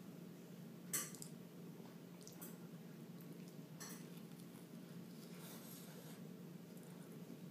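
A person eating a cheesesteak sandwich: quiet chewing and biting, with a few soft clicks and one sharper click about a second in, over a steady low hum.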